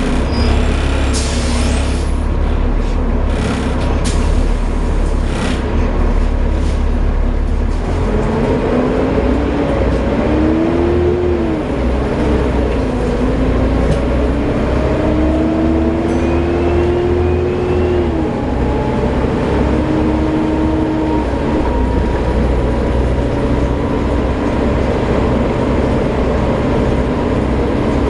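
Volvo B7TL double-decker bus's diesel engine and driveline running, with a few short air hisses near the start. Then a whine rises in pitch as the bus pulls away, drops and rises again with each gear change, and settles to a steady whine.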